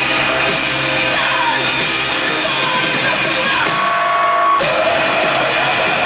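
Live post-hardcore band playing loud: distorted electric guitars, bass and drums, with shouted vocals, recorded from within the crowd. A single held high note stands out for about a second near the four-second mark before the full band hits again just before five seconds.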